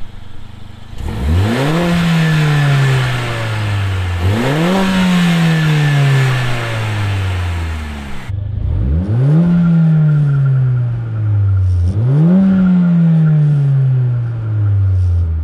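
Mercedes-AMG CLA 45's turbocharged four-cylinder engine, breathing through a K&N air filter, revving up four times; each time the pitch climbs quickly and then falls slowly back. A hiss runs over the first two revs.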